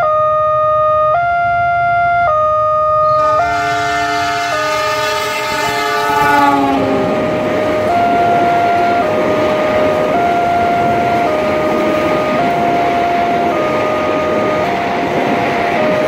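Electronic level-crossing warning siren, the Wantech alarm type, sounding two alternating tones that switch about once a second. About three seconds in, a train's horn blows for a few seconds and drops in pitch as it passes. The clatter and rumble of a passenger train's wheels on the rails then fills the rest, under the alarm.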